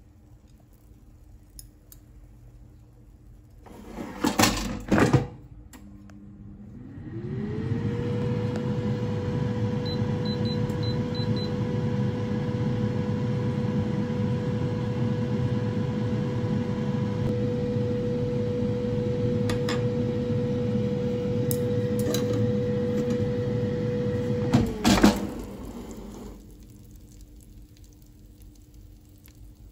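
Air fryer in use. A couple of loud clunks from its basket come first. Its fan then spins up into a steady whirring hum, with five short high beeps from the touch panel while it runs. Near the end more loud clunks come from the basket, and the fan winds down and stops.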